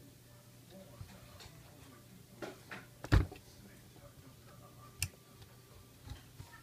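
Hard plastic toy airplane being handled and turned over, giving scattered clicks and knocks, with the loudest knock about three seconds in.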